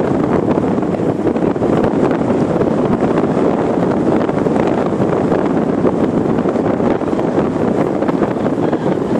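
Wind buffeting the microphone: a steady, loud rumbling rush with no clear goose calls standing out above it.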